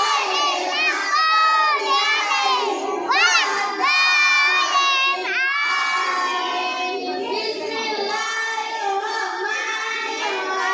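A group of young children chanting a prayer recitation aloud together, many voices overlapping in a loud sing-song with pitch swooping up and down.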